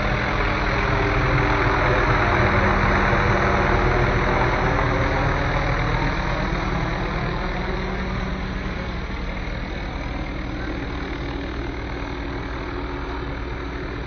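Police helicopter flying in to land, its rotor and turbine engine making a steady drone with a sweeping, shifting tone. It is loudest a few seconds in, then slowly grows fainter.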